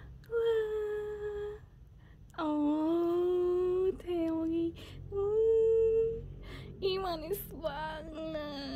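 A woman humming a wordless tune in a few long held notes, the pitch wavering and sliding near the end.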